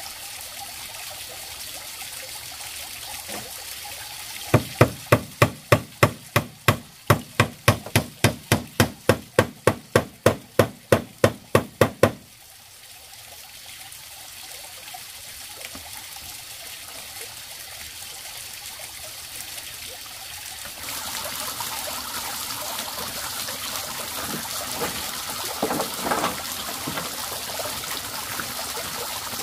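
Hammering on a bamboo-and-wood shed: about twenty quick, even blows, between two and three a second, that stop abruptly after about eight seconds. A few softer knocks follow near the end.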